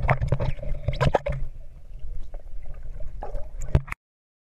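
Swimmers churning the lake water, heard underwater through a GoPro Hero 3's waterproof housing: muffled sloshing and bubbling with many sharp clicks and knocks, the loudest knock near the end. It cuts off suddenly about four seconds in.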